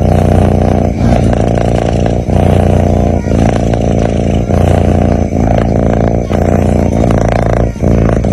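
Sleeping kitten snoring: a loud, continuous low rumble, broken by a brief dip about once a second at each breath.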